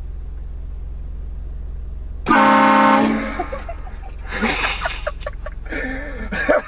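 Vehicle-mounted train horn blasted once about two seconds in, a very loud chord of several tones lasting under a second, over a low steady hum. Voices follow the blast.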